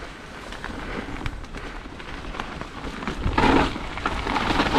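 Mountain bike riding down a wet, muddy, rocky trail: tyre noise on mud and rock with scattered clicks and rattles from the bike, growing louder, with a loud burst of clatter about three and a half seconds in.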